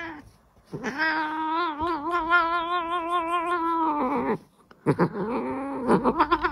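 A grey shorthaired cat yowling in two long, drawn-out calls with a wavering pitch. The second call breaks into quick shaky pulses near the end.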